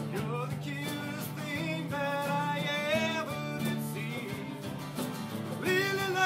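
Live acoustic session music: strummed acoustic guitar under a wavering melody line, a little louder near the end.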